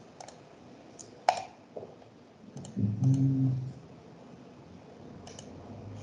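A few scattered sharp clicks of computer input, the loudest about a second in, over a video-call line. A short low vocal sound about three seconds in.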